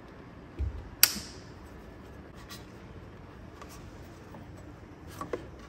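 Hands fitting a wiring harness and its connectors in a car's engine bay: a low bump, then a sharp click about a second in, followed by a few faint ticks.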